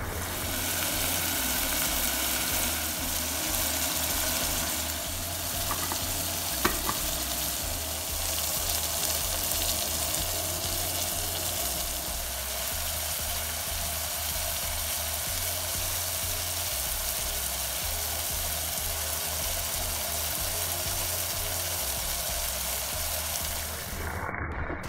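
Minced meat and onions sizzling steadily as they fry in a pan. There are a couple of light clicks about six seconds in.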